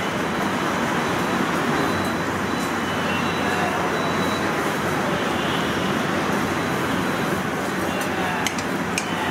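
Steady street ambience: a constant hum of road traffic with indistinct background voices.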